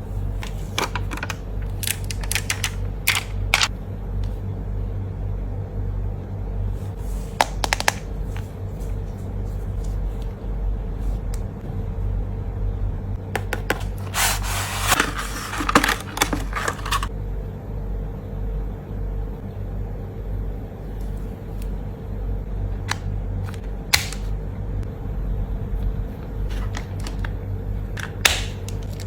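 Packaging handled during a phone-case unboxing: scattered light clicks and taps, with a few seconds of rustling about halfway through, over a steady low hum.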